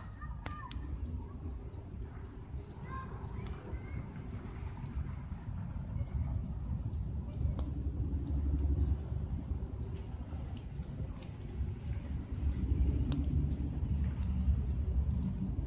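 Night ambience at a burning wood fire: a steady low rumble with a few sharp crackles, under high-pitched chirping repeated a few times a second.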